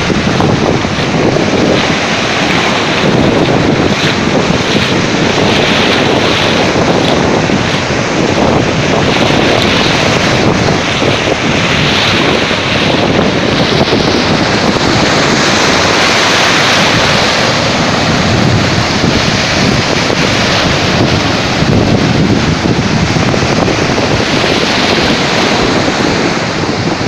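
Sea surf and wind blowing across the microphone, a loud, steady rushing noise.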